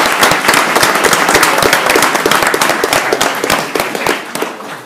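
A room full of people applauding, with dense clapping that fades away near the end.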